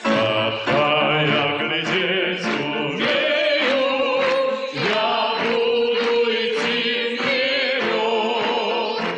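Two male pop singers singing a duet with live orchestral accompaniment, long sustained notes sung with vibrato.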